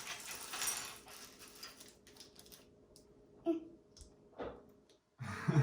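Small plastic LEGO pieces clicking and rattling as they are handled and sorted, with a few scattered sharp clicks.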